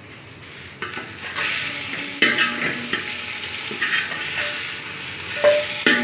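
A utensil scraping and clinking in a metal cooking pot as the steamed chicken roast is handled, with hot oil sizzling. It starts about a second in, with sharp metal clinks around two seconds and again near the end.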